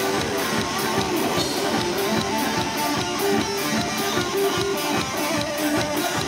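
Live rock band playing: guitars strumming over drums with a steady beat.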